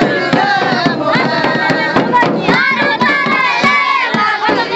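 Many voices from a crowd mixed with folk dance music, with sharp drum strokes at a regular beat.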